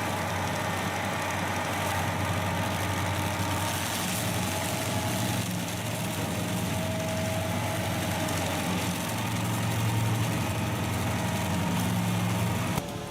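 Stump grinder's engine running steadily, with a low hum; the sound drops off suddenly near the end.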